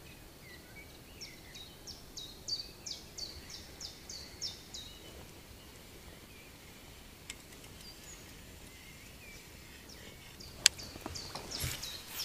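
Quiet open-air ambience with a bird singing a run of about a dozen quick, high, falling notes, about three a second, that stops after a few seconds. Later come two sharp clicks, the second and louder near the end, then a brief rush of noise.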